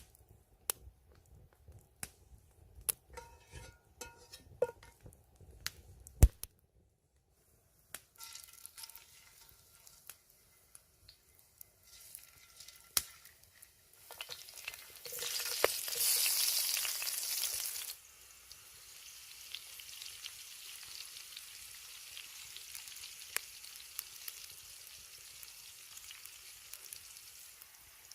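Scattered knocks and clinks for the first few seconds. Then food frying in hot oil: a loud burst of sizzling about halfway through that lasts some four seconds, settling into a steady, quieter sizzle.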